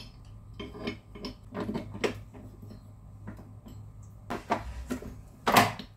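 Scattered clicks and metallic knocks as a beater attachment is fitted onto a stand mixer and a spatula knocks and scrapes in a steel mixing bowl, with a louder knock near the end.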